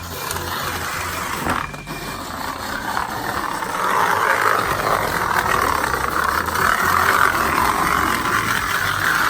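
Model train running along metal track: a small motor whirring with the wheels rattling over the rails, growing louder about three to four seconds in.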